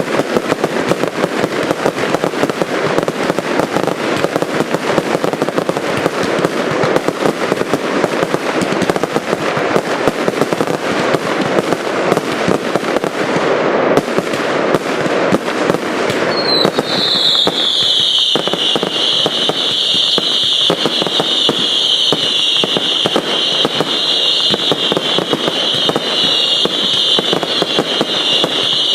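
Consumer fireworks going off in a dense, continuous barrage of rapid bangs and crackling. About halfway through, a loud high-pitched whistle starts, drops slightly in pitch, then holds steady over the crackle.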